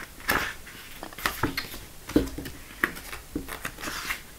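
Pages of a paper booklet being turned and handled: a string of short, irregular rustles and taps.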